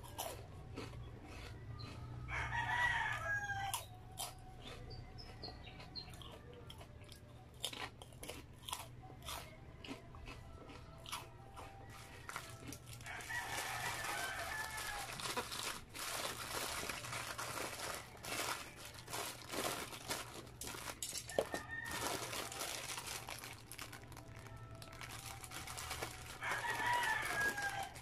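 Close-up crinkling of a greasy paper bag of chicharon and crunchy chewing, heard as many small clicks and rustles. Behind them, a crowing call rises three times, each lasting a second or more: near the start, about halfway and near the end.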